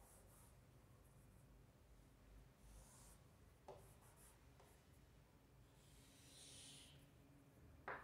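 Faint scratching of chalk on a chalkboard in a few short strokes as a curve is drawn, with two light sharp taps, one about halfway through and one near the end.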